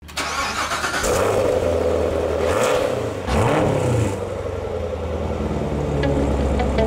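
Engine sound of a 2017 Corvette Stingray's 6.2-litre LT1 V8, running steadily with a rise and fall in pitch about three seconds in.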